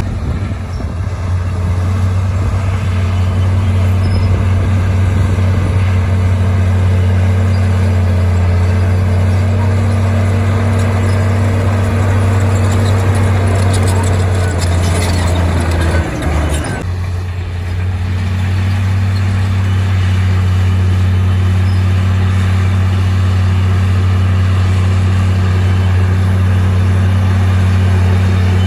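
Heavy diesel engine of earthmoving machinery running steadily with a deep drone, briefly dropping and changing a little over halfway through before settling back to the same steady note.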